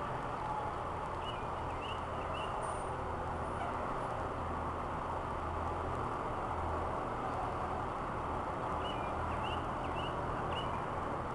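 Backhoe's diesel engine running steadily, a constant low hum under an even rumble.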